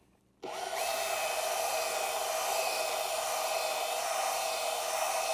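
Cordless drill spinning a 90-degree countersink bit into a carbon-fibre foil wing, countersinking the hole for a titanium barrel nut. The motor starts about half a second in with a whine that rises as it speeds up, then runs steadily with the bit cutting.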